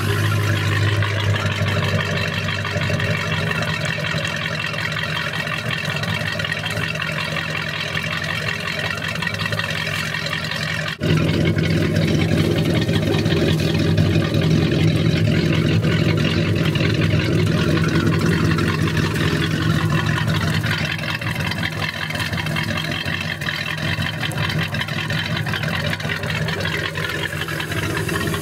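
Ski boat's inboard engine idling steadily. There is a brief dip about eleven seconds in, after which it is louder.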